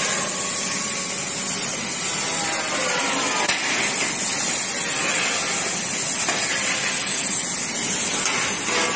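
CNC plasma cutting machine giving a loud, steady hiss, with faint whines rising and falling in pitch.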